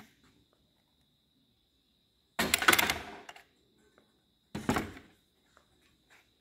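Pneumatic nailer firing twice, about two seconds apart, each shot a sharp bang that trails off over about half a second.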